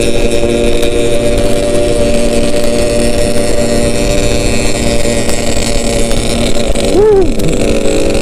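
Yamaha RX-King's two-stroke single-cylinder engine running at a steady speed on the move. A brief rising-and-falling tone comes about seven seconds in.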